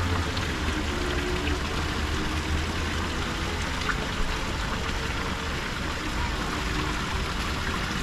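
Water pouring steadily from a row of carved stone-head spouts into a shallow pool, an even splashing over a low steady rumble.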